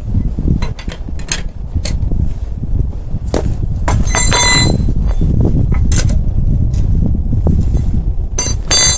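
Metal clinks and knocks of tools and parts being handled in a car tyre change, with a ringing metallic clink about four seconds in and another near the end, over a low rumble of wind on the microphone.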